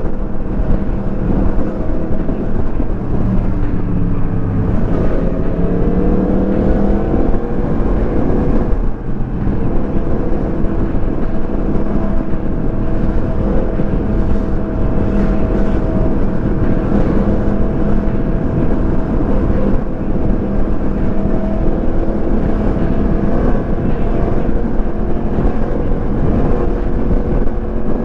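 Motorcycle engine running while riding, under steady wind noise on the microphone. The engine pitch rises about four to seven seconds in, dips briefly near nine seconds, then holds steady.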